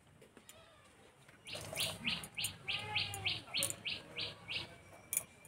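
A bird calling: a quick run of about a dozen sharp, high chirps, roughly four a second, starting about a second and a half in and lasting about three seconds.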